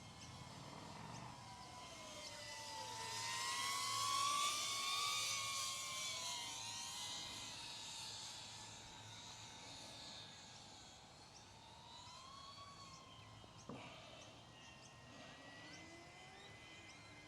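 iFlight ProTek35HD cinewhoop drone's ducted propellers and motors whining, the pitch rising and falling with throttle changes and loudest about four to five seconds in. A single sharp click comes near the end.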